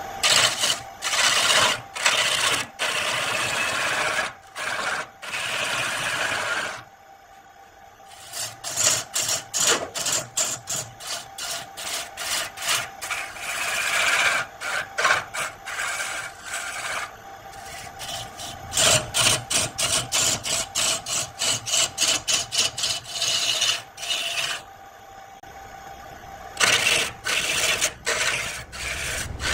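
Wood lathe running with a steady hum while a hand-held turning gouge cuts into a spinning wood blank, making scraping cuts and runs of rapid repeated strokes. The cutting stops twice, leaving only the lathe's hum.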